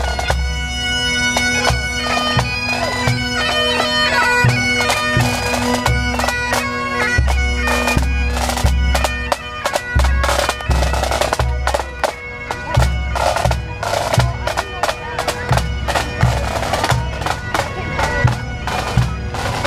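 Pipe band of bagpipes and drums playing a march: the bagpipe melody runs over a steady held drone, with regular bass drum beats and snare drum strokes underneath.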